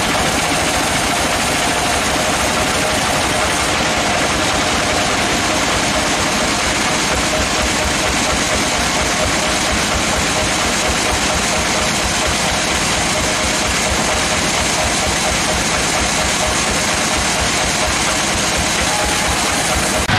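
Sawmill machinery running steadily: a dense, unbroken mechanical noise with a steady whine.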